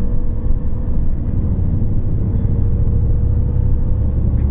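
Car driving along, heard from inside the cabin: a steady low rumble of road and engine noise with a faint steady hum above it.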